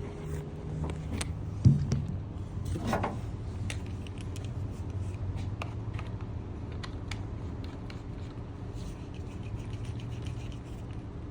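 Scattered small clicks and knocks of pressure-washer gear being handled, with one sharp knock about two seconds in, over a steady low hum.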